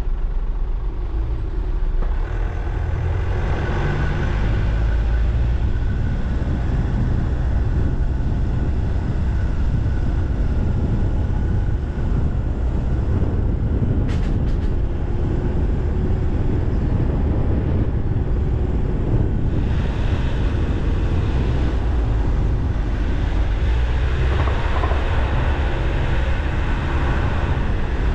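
Car driving at low speed: a steady low rumble of engine and tyre noise, with a brief tick about 14 seconds in.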